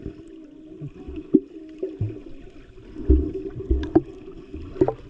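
Underwater water noise heard through a submerged action camera, with swimmers splashing just above it: a muffled steady hum with several dull thumps and a few sharp clicks.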